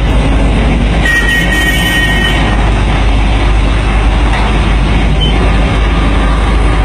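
Wheel loader's diesel engine running close by, a loud steady rumble. A brief high steady tone sounds about a second in and lasts just over a second.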